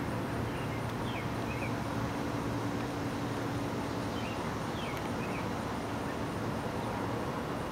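Outdoor ambience: a steady low rumble and hum with a few short, high bird chirps in small clusters, and a faint high-pitched pulsing trill behind it.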